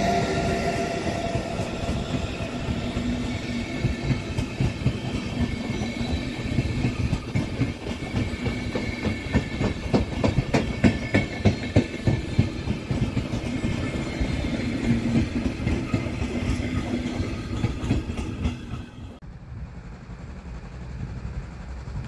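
A train passing, its wheels clicking over rail joints, with the clicks thickest and loudest around the middle. The sound drops away suddenly near the end.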